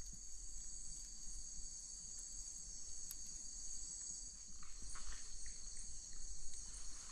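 A night chorus of crickets and other insects trilling steadily in several high-pitched layers, with a few faint rustles of leaf litter in the middle.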